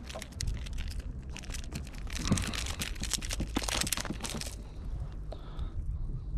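Water splashing and crackling close to the kayak as a hooked Cortez barracuda is handled and released at the surface. The crackling is densest from about two to four and a half seconds in, then thins out.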